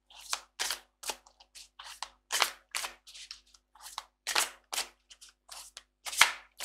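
A deck of tarot cards being shuffled overhand in the hands, a quick run of crisp card slaps and swishes about two and a half a second, the loudest near the end.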